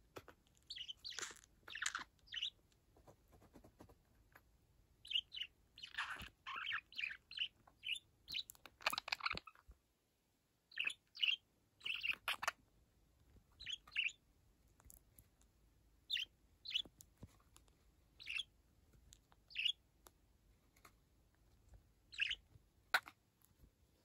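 Budgerigar chirping and warbling in short bursts. The calls come thickest in the first ten seconds, then thin to single chirps every second or two.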